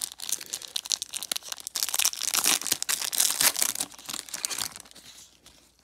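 Foil wrapper of a trading-card pack being torn open and crinkled by gloved hands: a dense crackling that is loudest in the middle and dies away near the end.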